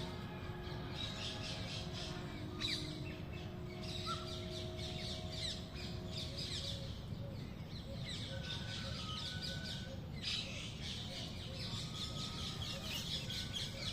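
Many small birds chirping and twittering together in a dense, continuous chorus, with occasional harsher calls. A few steady low held tones sound under it for the first six seconds or so.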